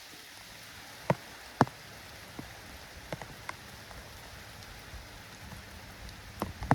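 Steady light rain falling on a surface, with a few sharp taps: two loud ones in the first two seconds and a brief cluster near the end.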